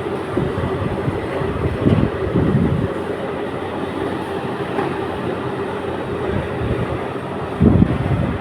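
A 300 kg electric melting furnace running: a steady, rough industrial drone with a continuous hum through it, broken by a few louder low thumps about two seconds in and again near the end.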